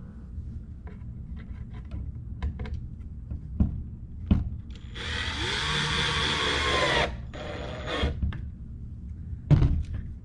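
Power drill running for about two seconds midway, its motor pitch rising as it spins up, during assembly of a wooden birdhouse. A few sharp knocks of wood being handled come before and after it.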